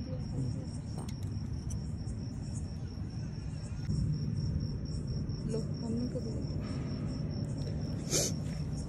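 Crickets chirping in a steady, fast pulsing high trill over a low background rumble, with a short sharp sound near the end.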